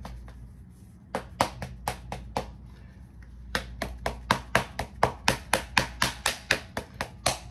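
A run of sharp percussive taps on the body during self-massage. A few come irregularly, then from about halfway they fall into a steady beat of about three a second and grow louder.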